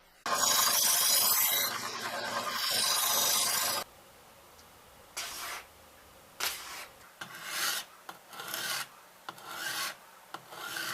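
Sharpening stone on a fixed-angle jig scraping along a knife blade. First a loud continuous run of scraping for about three and a half seconds, then quieter, separate short strokes, about one a second.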